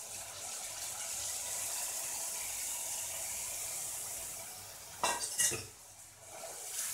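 Tamarind water poured from a steel bowl into a hot kadai of oil and tempering, hissing steadily as it hits the hot pan. About five seconds in, a short metallic clatter of steel utensils against the pan.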